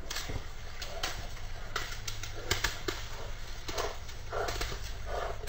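Dog splashing and pawing in a muddy puddle: irregular wet slaps and splashes over a steady low rumble.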